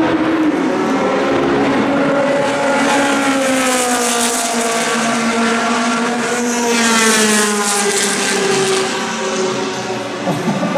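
Historic formula racing car (F2/F3000/Formula Nippon-era single-seater) at high revs on the straight, passing by: its engine note climbs for a few seconds, is loudest about seven seconds in, then drops in pitch as the car goes past.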